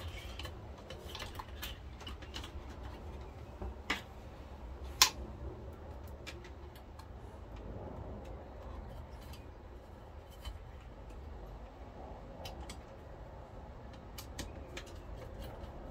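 Light metallic clicks and taps as a metal shield plate is seated on a VCR chassis and its screws are driven in with a screwdriver, with a sharp click about five seconds in, over a low steady hum.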